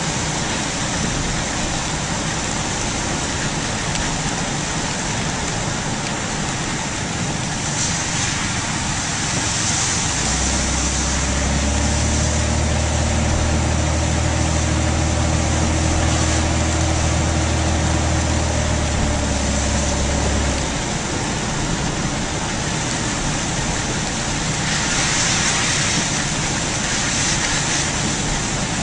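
A car drives on wet, flooded roads with a steady hiss of tyres and water throughout. A low engine hum comes in about a third of the way through and stops about two-thirds through.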